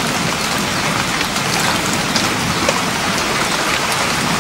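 Steady rain falling, a constant hiss sprinkled with small drop ticks.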